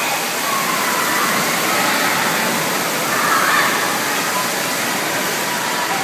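Steady rush of water from the pool's fountain spouts and jets splashing into the churning pool, with faint indistinct voices in the background.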